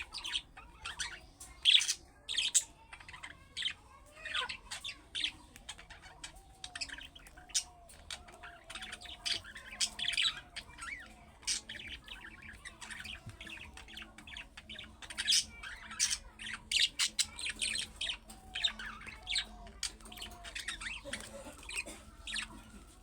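Budgerigar chattering: a quick, irregular run of sharp chirps and squawks over a softer running warble, the contact and singing calls that pet budgies answer.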